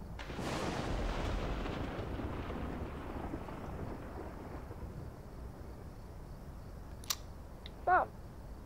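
A long roll of distant thunder that swells about a second in and slowly dies away over several seconds. Near the end come a sharp click and a short call that slides down in pitch.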